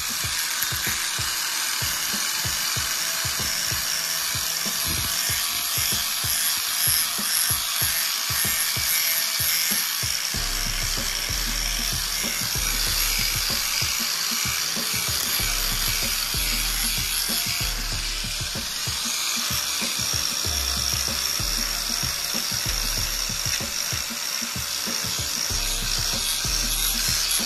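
Electric angle grinder with a flap disc running steadily against a chrome-plated alloy wheel rim, a high whine as it grinds off the oxidized chrome. Background music plays over it, with a bass line coming in about ten seconds in.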